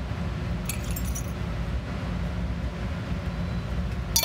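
Shards of broken annealed plate glass clinking, lightly about a second in and more sharply near the end as a gloved hand stirs the pieces, over a steady low background rumble.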